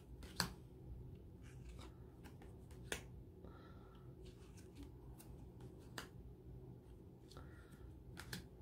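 Tarot cards being slid off the deck one at a time and laid on a pile: a faint, sharp card snap about every two to three seconds, the first the loudest, with soft sliding rustles in between.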